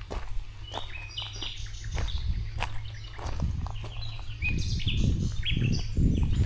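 Small birds chirping, many short high notes overlapping. Scattered clicks and a low rumbling noise that grows louder in the second half.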